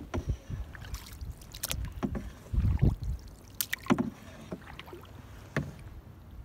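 Paddling a solo canoe on a river: irregular paddle splashes and water sloshing, with several sharp knocks and clicks.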